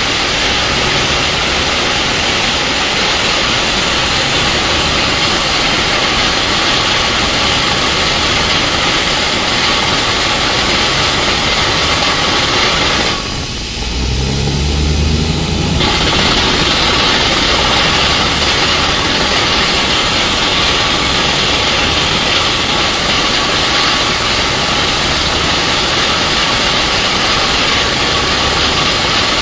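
Truck-mounted water well drilling rig running under test: a loud, steady rush of air over its diesel engine. About halfway through the rush cuts out for a couple of seconds, leaving the engine's low hum, then comes straight back.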